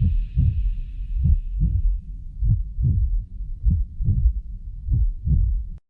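Heartbeat sound effect: deep double thumps (lub-dub) repeating a little slower than once a second, with a high hiss fading away over the first two seconds. It cuts off suddenly near the end.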